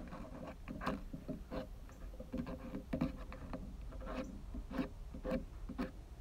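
Irregular small clicks, scrapes and rustles of hands handling things close to the microphone, a dozen or so short sounds spread unevenly.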